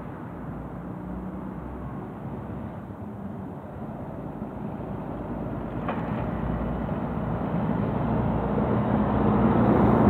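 Road traffic: a motor vehicle's engine and tyre noise grows steadily louder over the last few seconds as it approaches, over a constant traffic rumble.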